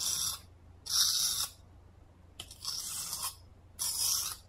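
Kitchen knife blade swiped across the coarse side of a whetstone: four rasping scrapes, each about half a second long and a second or so apart.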